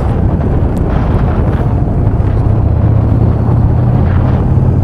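Yamaha XV950R's air-cooled V-twin running steadily at road speed, with wind rushing over the microphone.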